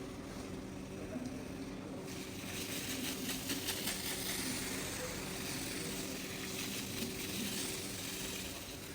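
Pressure washer motor humming steadily, with the hiss of its water spray starting about two seconds in as the rug is rinsed.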